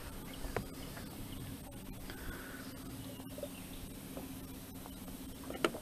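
Minn Kota electric trolling motor running with a steady low hum, which stops shortly before a sharp knock near the end.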